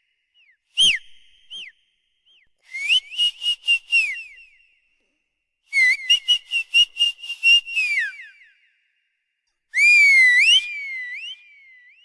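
High-pitched whistling in several bursts: a few short chirps, then two fast trills that hold one pitch and swoop downward at their ends, and near the end a wavering warble.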